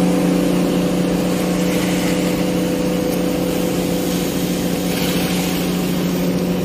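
Hydraulic excavator's diesel engine running steadily, a constant even drone with no revving.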